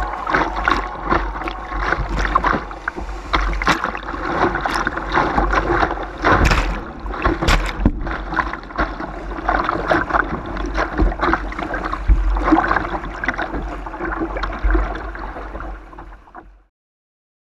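Kayak bow running through a riffle on a swollen, muddy river: rushing water with frequent sharp splashes against the hull, over a low rumble. The sound cuts off suddenly about a second before the end.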